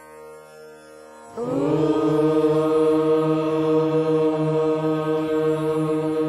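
Soft sustained instrumental tones, then about a second in a group of voices comes in loudly with a long devotional chant held on one steady note.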